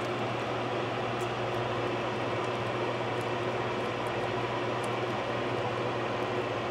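Steady machine noise, a low hum under an even hiss, with a few faint crackles of tape being pressed down by hand.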